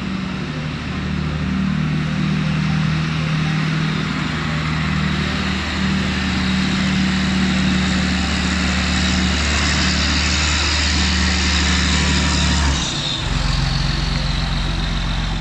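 John Deere 8120 tractor's six-cylinder diesel engine running steadily as the tractor manoeuvres. About 13 seconds in, the engine note drops lower and settles.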